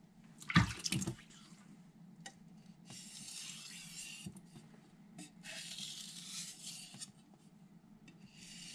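A sharp clack about half a second in, then three long scraping strokes of a carbon steel knife blade drawn across a wet vitrified Miyagoshi whetstone, each lasting about a second and a half.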